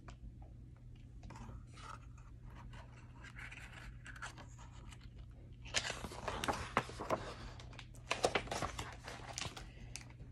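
Paper rustling and scraping as a page of a picture book is handled and turned, with a denser, louder run of rustles from about six seconds in until shortly before the end.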